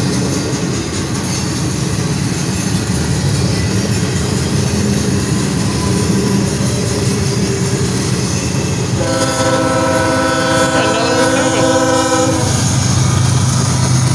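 Freight cars rolling past on steel rails with steady wheel-on-rail noise. About nine seconds in, a diesel locomotive horn sounds one long chord for about three seconds. Near the end the drone of a CSX diesel locomotive's engine grows as it comes alongside.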